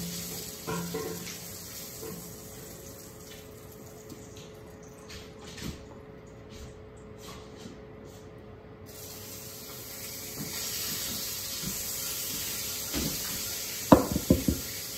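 Steady sizzling hiss of lamb frying in a pan in the background, growing brighter about ten seconds in. A few sharp knocks come near the end.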